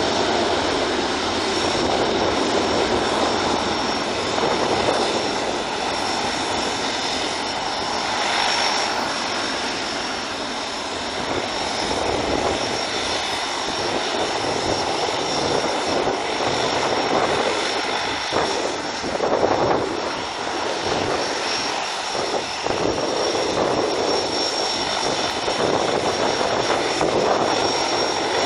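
Twin jet engines of a Boeing 737 at takeoff power through the takeoff roll and climb-out: a loud, steady rushing noise with a thin, steady high whine over it.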